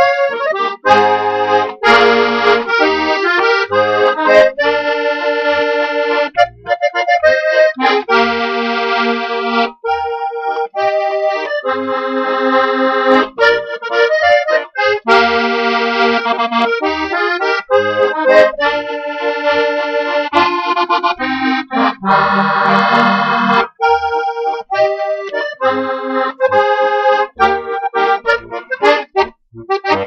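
Franc Cimperman diatonic button accordion (Steirische harmonika) tuned in B-flat, E-flat and A-flat, playing a waltz: chords over short, separate bass notes.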